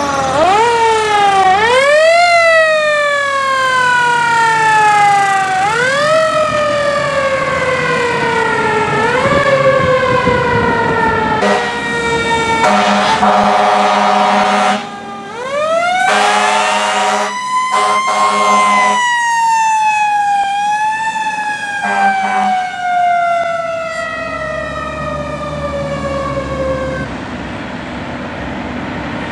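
Fire truck sirens on emergency response. For the first ten seconds a siren wails over and over, each time rising quickly and falling slowly. Then come broken air horn blasts. About halfway through, a siren winds up once and slowly glides down over about ten seconds, with more horn blasts over its start.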